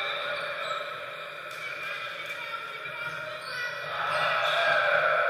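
Echoing gymnasium ambience at an indoor volleyball match between rallies: players' voices and chatter, with a few sharp knocks.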